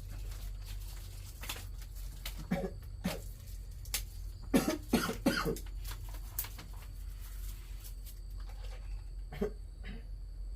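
A sick man coughing in fits. There are a couple of coughs about two and a half seconds in, then a harder run of several coughs about halfway through, then two more near the end. It is the lingering cough of an illness that also has him feverish.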